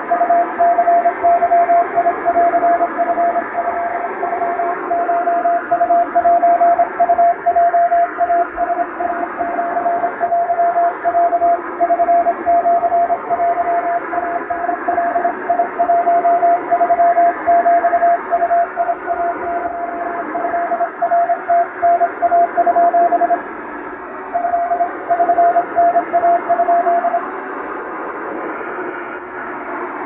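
Japanese wabun Morse code sent on a straight key, heard as a mid-pitched beeping tone keyed in dots and dashes over steady shortwave-style static. The keying pauses briefly about three quarters of the way through, resumes for a few seconds, then stops, leaving only the hiss near the end.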